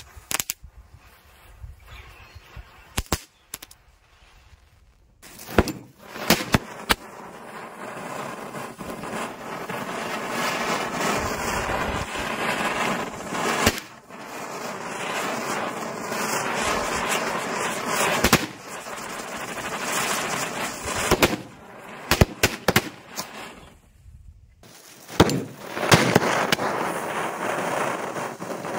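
A ground chakkar (spinner firework) hissing steadily as it throws a jet of flame and sparks, with sharp bangs of small bijli firecrackers going off several times before and over it. The hiss starts about six seconds in and dips briefly near the end before picking up again.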